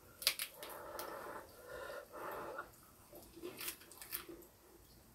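Faint close-up eating sounds: a few sharp mouth or chopstick clicks, a muffled sound for about two seconds while a pork belly leaf wrap is taken into the mouth, then more clicks of chewing.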